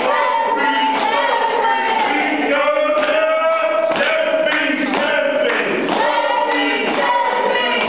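A group of voices singing a song together, with long held notes that rise and fall.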